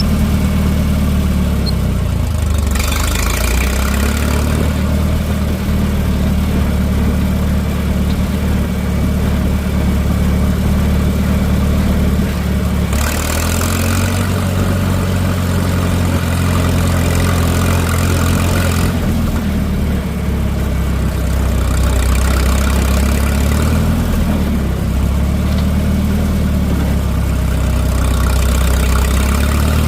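Minneapolis-Moline M670 tractor engine running as the tractor is driven, its speed dipping and rising several times. Brief bursts of hiss come a few seconds in and again near the middle.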